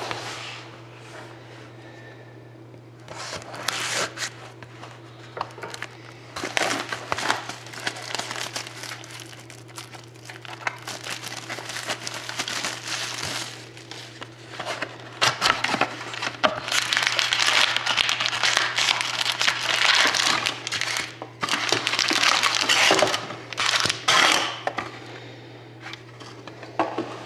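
Plastic wrapping crinkling, crumpling and tearing in irregular bursts as a sealed box of hockey cards is unwrapped and opened, over a steady low hum.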